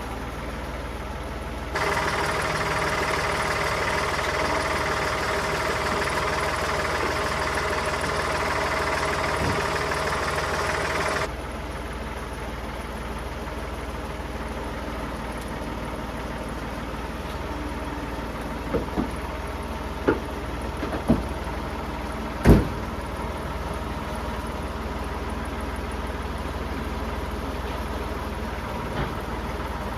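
Tractor engine running, raised abruptly to higher revs for about nine seconds near the start, then settling back to idle. Several sharp metal knocks come later, the loudest about two-thirds of the way through.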